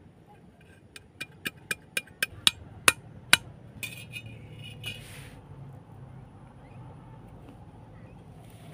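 Machete blade tapping a bamboo peg into sandy ground: about nine sharp, clinking taps over two and a half seconds, growing louder, followed by a short scrape of handling the pieces.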